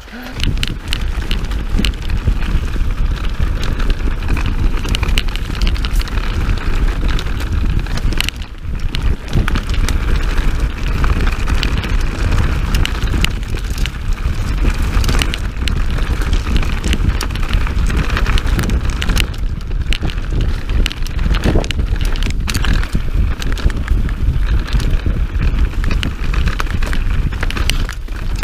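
Mountain bike riding fast down a dirt forest singletrack, heard from a camera mounted on the bike: a steady rush of wind on the microphone over tyre noise on dirt and stones, with constant rattling and clattering of the bike over bumps. It eases briefly about eight seconds in.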